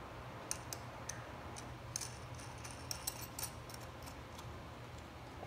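Faint, irregular small metal clicks and ticks as nuts are spun by hand onto the threaded ends of a steel U-bolt clamp on a mini bike fork leg, over a low steady hum.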